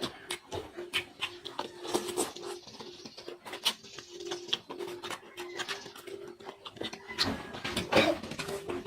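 Close-miked eating sounds: wet chewing and lip-smacking on spicy seafood, with many short sharp clicks. A louder, wetter stretch of chewing comes about seven seconds in, over a faint steady hum.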